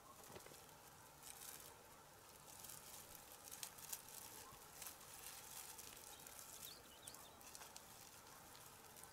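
Near silence, with faint scattered rustling and crackling of leafy branches being handled and arranged on a small perch tree.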